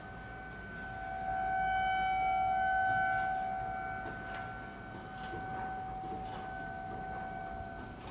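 Outdoor tornado warning sirens sounding a steady tone for the county's monthly siren test. The tone swells louder about a second in and eases off again after a few seconds.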